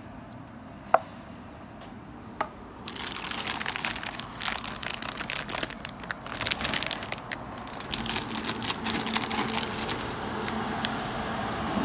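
Plastic food packaging crinkling and rustling as it is handled and cut open with scissors, starting about three seconds in, after a single sharp click about a second in.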